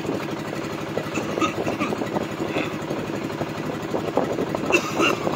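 Small fishing boat's engine running steadily, with a rapid, even throb.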